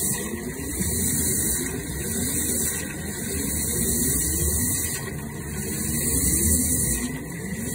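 High-pressure drain jetter spraying into a concrete drain pit as the jetting hose flushes a well-water drain line clogged with iron and calcium scale: water hissing and churning, the hiss swelling and easing every second or two, over a steady machine drone.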